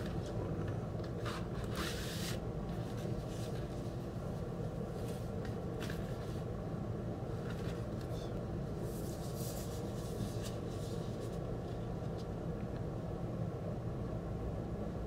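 Paper and card rustling in short scattered bursts as a vinyl record's printed insert and paper inner sleeve are handled, over a steady low hum.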